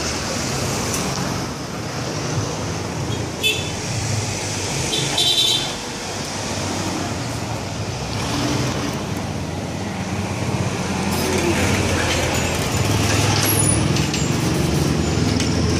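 City street traffic: vehicle engines running and passing in a steady rumble, with two brief high tones a little after three and five seconds in, and voices in the background.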